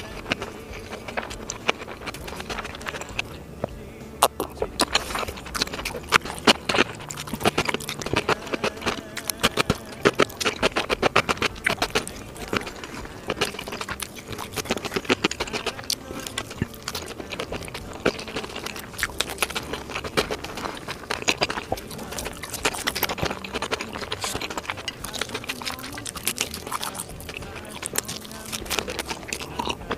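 Close-miked chewing and mouth sounds of a person eating, a dense, irregular run of small wet clicks.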